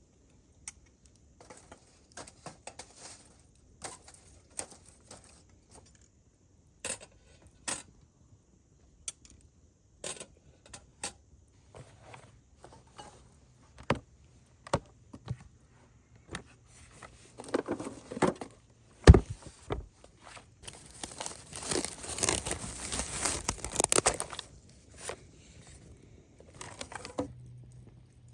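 Small objects being handled: scattered light clicks and knocks, one sharp knock about two-thirds of the way through, then a few seconds of crinkling rustle near the end.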